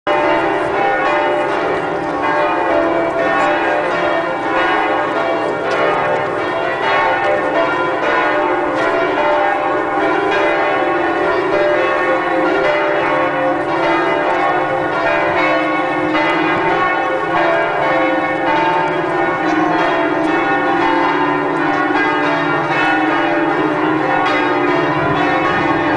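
The bells of Notre-Dame de Paris ringing together in a loud, continuous peal, many bells sounding at once with overlapping strokes and no pause.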